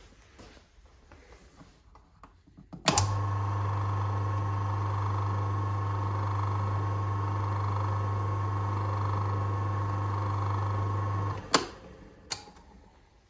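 Atlas 10100 bench lathe's electric motor and spindle start with a click about three seconds in and run steadily, with a strong low hum and a steady whine, then stop abruptly with a click about three quarters of the way through; a single sharp click follows a second later.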